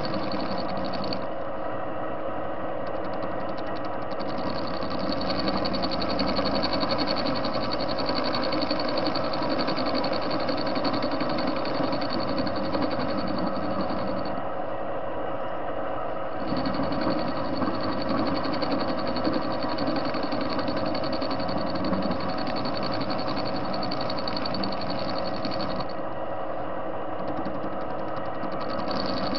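TV-16 lathe running and turning a metal washer blank, a steady mechanical whir with a fine rapid chatter from the drive and the cut. The high chatter drops away for a few seconds three times: near the start, in the middle and near the end.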